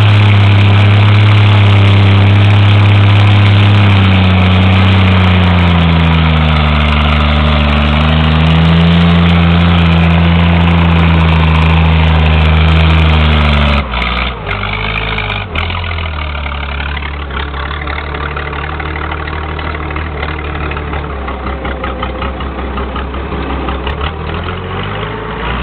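Six-cylinder engine idling with a deep exhaust rumble, its pitch wavering gently now and then. About fourteen seconds in the sound drops abruptly and turns quieter and uneven, with a few clicks, as the engine keeps running.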